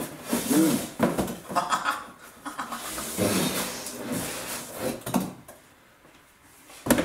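Cardboard parcel and packing being handled and opened: irregular rustling and scraping with a few light knocks for about five seconds.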